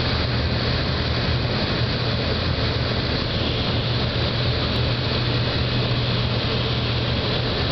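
Propeller aircraft's engine and airflow heard from inside the cabin: a steady drone with a strong low hum, as the plane comes in to land.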